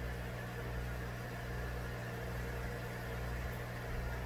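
Steady low electrical hum from a mains-powered motor or appliance, a few even low tones over a faint hiss, unchanging throughout.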